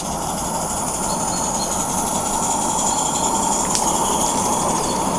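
A train of 16mm-scale garden railway wagons rolling past on the track, their small metal wheels making a steady rumble and clatter on the rails, with a single sharp click a little under four seconds in.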